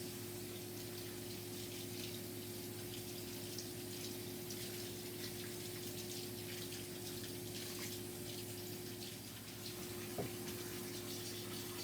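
Kitchen tap running steadily as cilantro is rinsed under it, over a steady low hum.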